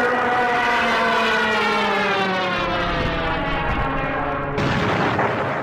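Junkers Ju 87 Stuka's wind-driven 'Jericho trumpet' dive siren wailing, its pitch slowly falling. About four and a half seconds in, it gives way abruptly to a loud rushing noise.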